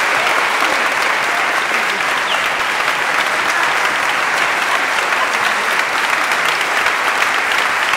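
Audience and orchestra musicians applauding: dense, steady clapping.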